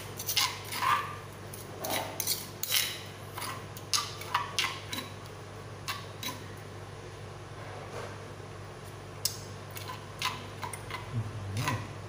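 Metal spoon clinking and scraping against a stone mortar as a chilli-and-lime seafood dipping sauce is stirred. Irregular clinks, busy for the first few seconds, sparser in the middle and picking up again near the end.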